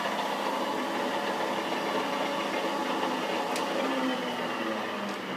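Steady mechanical hum of a Trak TRL 1840 CSS CNC/manual lathe running, with a single sharp click about three and a half seconds in.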